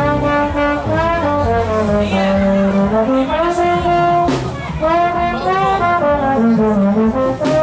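Solo trombone playing a melodic line, with notes sliding smoothly from one pitch to the next.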